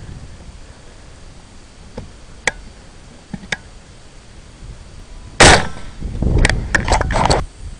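A single AR-15 rifle shot about five seconds in, the loudest sound here, followed by about a second of loud, rough noise broken by several sharp cracks. A few faint clicks come before the shot.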